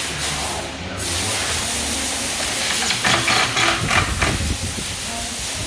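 Steady hiss of factory machinery and air with a low hum, and a burst of knocking and clatter about three seconds in as cabinet panels are handled.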